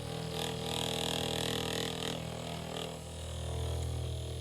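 Percussion massage gun running, a steady low buzzing drone with many overtones that grows louder about three seconds in.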